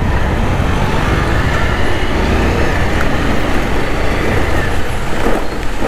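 Steady wind rush and road noise on the microphone of a moving motorcycle, heaviest in the low rumble.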